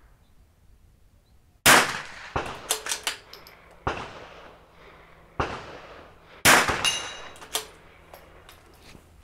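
Two shots from a .22LR bolt-action rifle (Vudoo V-22), about five seconds apart, the first near two seconds in. Lighter clicks and clacks between and after the shots come from the bolt being worked.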